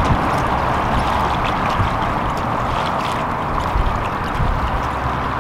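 Steady wind noise buffeting the microphone, with small waves washing against shoreline rocks.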